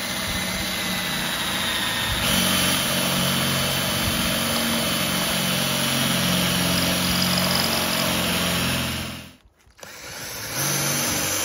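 Cordless drill boring a hole through the sheet-metal boot lid of a car, running steadily, with its pitch rising and the sound getting louder about two seconds in. It stops for about a second near the end, then starts again.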